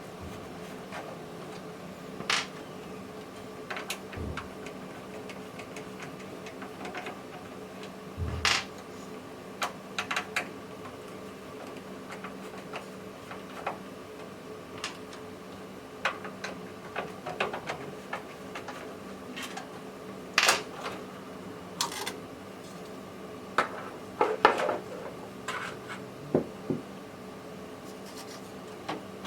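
Scattered clicks, taps and short scrapes of plastic and metal computer parts being handled and worked loose inside a desktop PC case, the loudest knocks about twenty and twenty-four seconds in.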